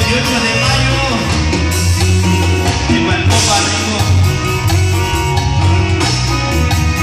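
Live dance band playing a chilena: loud, steady music with a bass line, held instrument notes and a regular drum beat.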